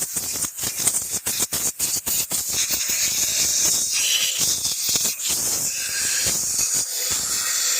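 Compressed-air blow gun blasting dust out of a Dyson stick vacuum's parts. It comes in rapid short bursts for the first few seconds, then holds as a steady hiss with a faint whistle on top.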